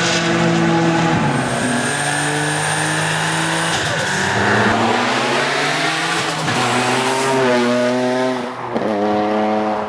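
A Nissan 350Z / Infiniti G35 VQ35 3.5-litre V6 running through a Momentum Performance aftermarket exhaust, under load. The exhaust note climbs in pitch and then drops sharply several times, as in upshifts while accelerating.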